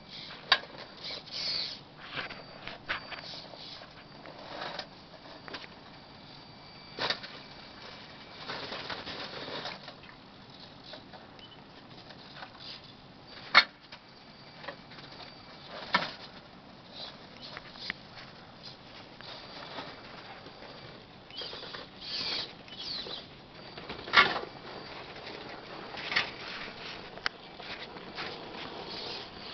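1/8-scale Redcat Rockslide rock crawler clambering through snow and over obstacles: tyres scrabbling and crunching in snow, with irregular knocks and clatters as the truck bumps and drops, a few of them sharp and loud.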